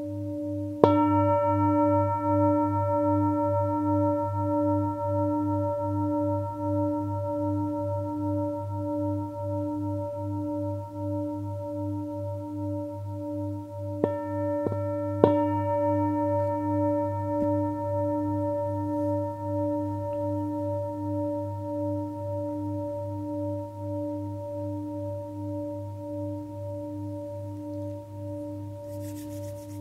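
Singing bowls: one bowl keeps ringing with a steady, wavering hum throughout, struck again about a second in so that its higher overtones ring out and fade, with three quick strikes on a bowl around the middle.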